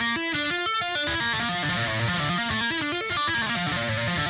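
Distorted electric guitar playing a fast legato run with two-handed tapping and left-hand hammer-ons from nowhere, the notes following one another quickly without a break.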